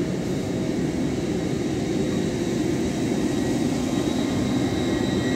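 LNER Class 801 Azuma electric train running through the station at speed close to the platform. It makes a steady, loud rumble of wheels on rail mixed with rushing air.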